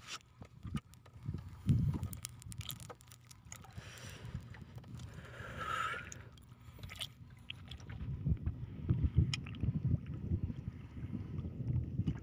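Wind buffeting the microphone and water slapping against a small boat's hull, a low uneven rumble, with scattered light clicks and knocks.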